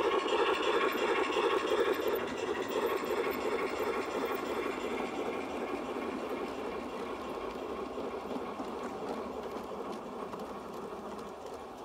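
LGB G-scale garden-railway train rolling past on the rails with a steady running noise, loudest at first and slowly fading as it moves away.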